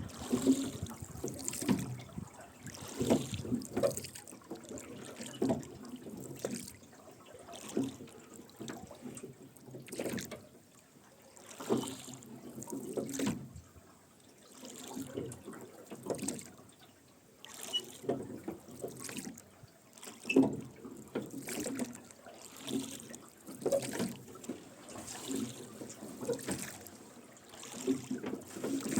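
Rowboat oars dipping and splashing in river water, with the oarlocks creaking, stroke after stroke in an uneven rhythm of about one every two seconds.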